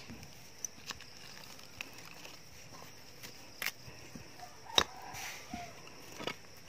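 Quiet outdoor ambience with a faint steady high hiss and about six light, scattered clicks and rustles, as of handling around soil and rocks. Two short faint tones sound near the middle.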